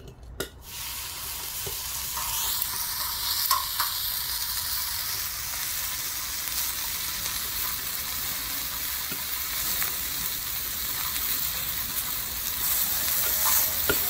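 Raw pork belly strips sizzling on a hot cast-iron pot-lid griddle. The sizzle starts as the first strip goes down and gets louder near the end as a second strip is added.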